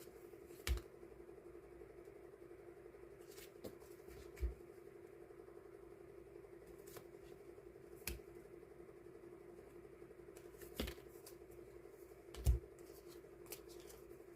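Die-cut paper stickers being handled and sorted by hand: a handful of light taps and clicks spread over several seconds, over a steady low hum.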